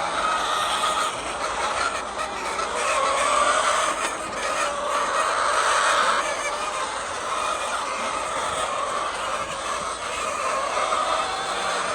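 A flock of laying hens clucking together, a continuous, dense din of many birds at once.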